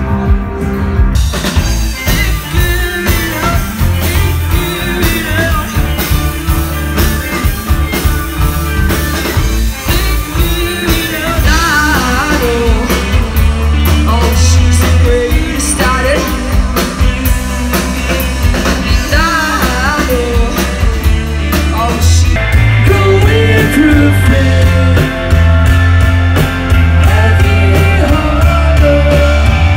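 Rock band playing live, with electric guitars, bass, drums and a singer's voice. About 22 seconds in the music changes to a different song, heavier in the bass.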